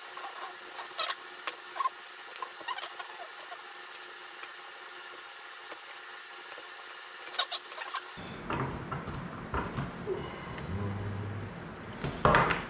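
Light clicks and scratches of small wooden strips being handled and marked with a pencil on a plywood workbench, with a louder knock near the end.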